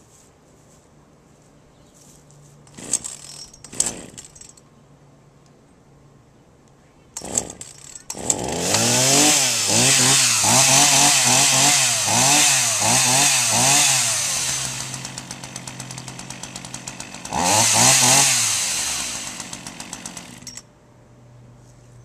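McCulloch MCC1435A two-stroke chainsaw cold-started: a few short pull-starter sounds, then the engine catches about eight seconds in. It is revved up and down about half a dozen times, then drops to idle. It gets one more rev before cutting off near the end.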